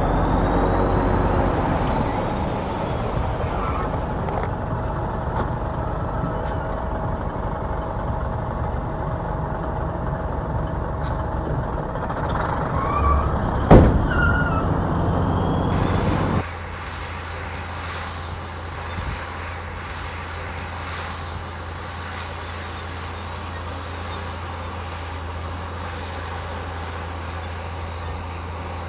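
Heavy diesel earthmoving machinery running steadily, with one sharp loud crack about 14 seconds in. A couple of seconds later the sound drops abruptly to a quieter, steady low engine hum.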